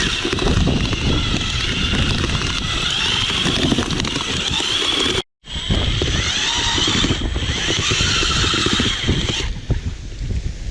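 Strong storm wind buffeting the microphone: a heavy, uneven rumble with a higher hiss and whistling over it. The sound drops out for an instant about five seconds in, then carries on, easing near the end.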